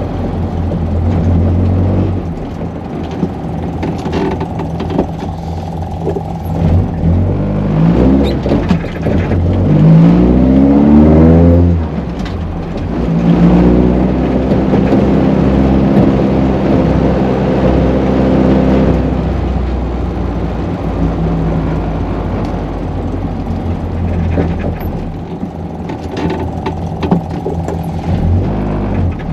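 VW Golf Mk1's 1.8-litre 16-valve four-cylinder on twin Weber carburettors, heard inside the cabin while driving. About a third of the way in the revs climb steeply, drop sharply with a gear change, then the engine holds at higher revs for several seconds before easing back to a lower cruise.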